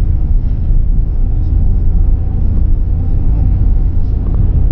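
Steady, loud low rumble of wind and road noise inside a car driving through a dust storm.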